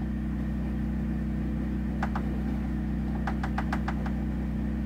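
A steady low hum, with a pair of light clicks about two seconds in and a quick run of about six light clicks near the end, as a shotshell is worked at the reloading bench.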